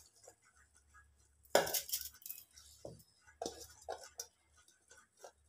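Soaked rice scraped out of a steel bowl into a steel mixer jar: a few light metal clinks and knocks as fingers and the bowl's rim touch the jar, the loudest about a second and a half in.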